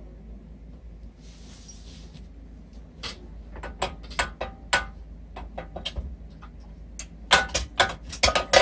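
Hands working loose metal hardware on a minibike's engine mount: scattered clicks and knocks of metal parts, a brief rustle about a second in, and a quick flurry of clicks near the end.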